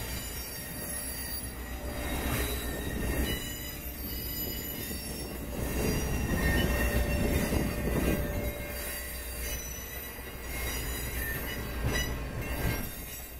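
Passenger coaches of a heritage train rolling past at a grade crossing, their wheels running on the rails in a steady low rumble that swells about halfway through and eases near the end.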